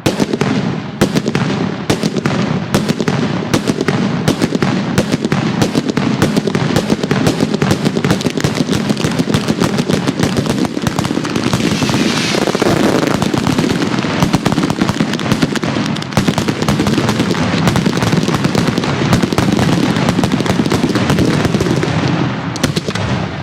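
A long string of firecrackers going off, a dense, rapid run of sharp bangs that tapers off near the end.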